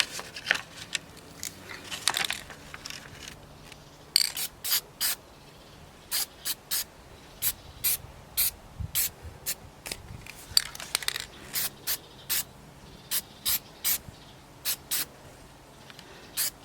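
Aerosol spray-paint can sprayed in many short, hissing bursts, touching up bare, scuffed metal on a motorcycle frame to keep it from rusting.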